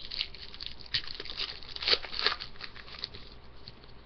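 Foil wrapper of a 2013-14 Black Diamond hockey card pack crinkling and crackling as it is torn open and handled, with a few sharper crackles about two seconds in.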